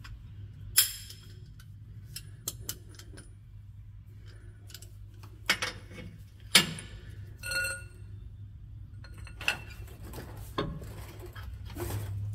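Steel hand tools clinking and clicking as a socket, extension and breaker bar with a pipe cheater bar are fitted onto a nut; a few sharp metal clinks, one ringing briefly about seven and a half seconds in. A low steady hum lies underneath.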